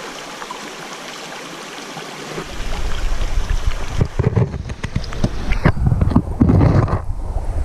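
Small stream running steadily over rocks; about two and a half seconds in, a hand is lowered into the water with the microphone, and the sound turns into loud, irregular sloshing and gurgling, muffled with the highs gone once the microphone is underwater.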